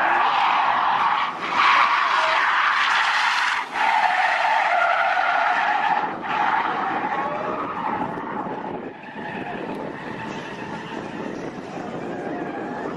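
A car's tyres squealing loudly as it drifts at speed, with engine noise underneath. The squeal is strongest in the first half and has died down by about eight seconds in, leaving a quieter noise.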